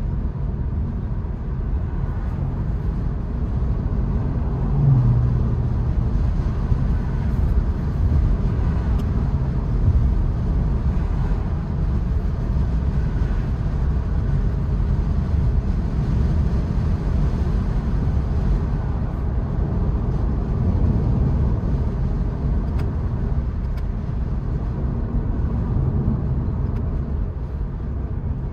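Steady road and wind noise inside a 2022 Honda Insight cruising with the sunroof open: a low, even rumble of tyres and air.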